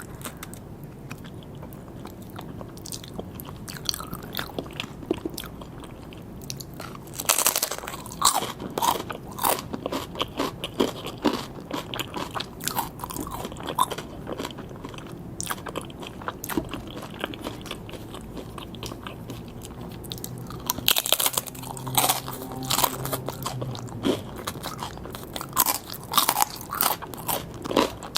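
Close-miked eating of sushi: chewing with sharp crunchy bites, louder bursts of crunching about a quarter of the way in and again near the end.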